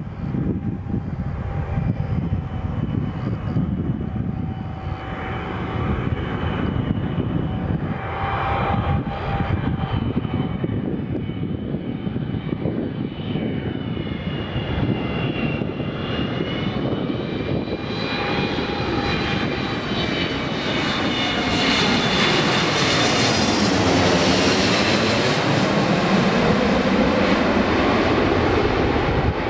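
Boeing 777-200ER twin jet engines on landing approach: a steady rumble with high whining fan tones, growing louder as the airliner closes in and loudest as it passes overhead near the end, with a sweeping, phasing sound at the pass.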